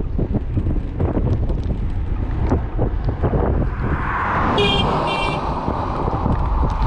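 An oncoming car approaches with rising tyre noise and gives two short toots of its horn about four and a half seconds in, over a steady rumble of wind on the microphone.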